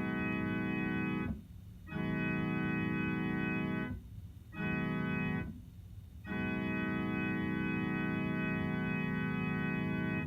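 Electronic keyboard with an organ-like voice imitating a Nathan K5LA five-chime train horn: one held chord sounded as four blasts, long, long, short, long, the grade-crossing horn pattern.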